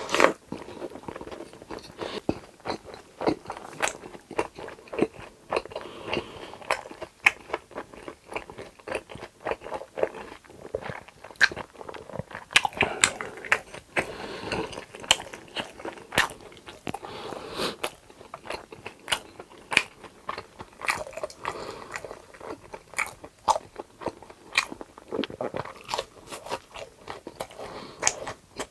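Close-miked eating of crunchy food: repeated crisp bites and crunching chews, several a second, with softer chewing between.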